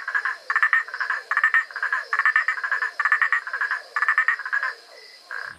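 Male tree frog calling, its throat sac inflating: a rapid run of short, clicking pulsed croaks, several bursts a second, which stops about five seconds in.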